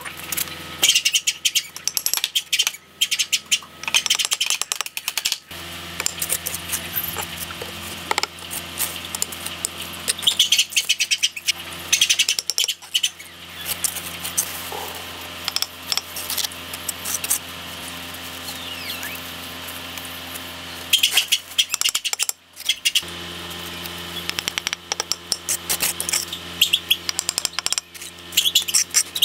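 Steel trowel scraping and tapping wet mortar on clay bricks as bricks are bedded and the joints are struck, in irregular scrapes and clicks.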